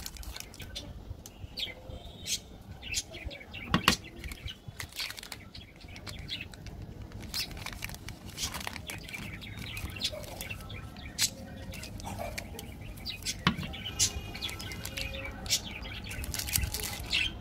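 Plastic candy-bar wrappers crinkling and crackling as they are handled and squeezed, in irregular short crackles.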